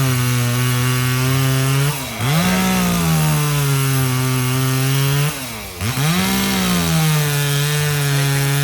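Gas chainsaw cutting into a log, its engine note held steady under load. The note drops off twice, about two seconds in and again near six seconds, and revs straight back up.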